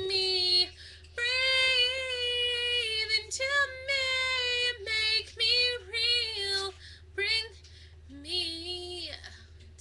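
A young female voice singing unaccompanied in long held notes, with short breaths between phrases and a quieter, lower phrase near the end.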